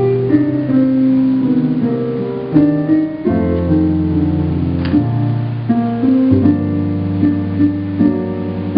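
Keyboard music: held chords over a bass line, with the chords changing every second or so.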